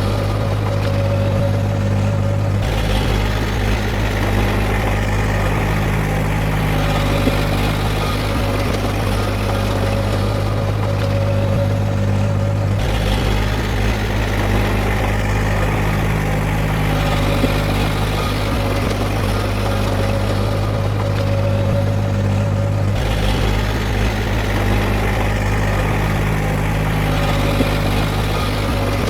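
Diesel engine of heavy earthmoving machinery running steadily, its tone shifting abruptly three times about ten seconds apart.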